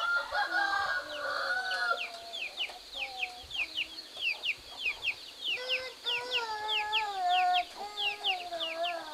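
Chickens in a village yard: a steady run of short, high, falling peeps, about three a second, with longer wavering calls over them near the start and again through the last three seconds.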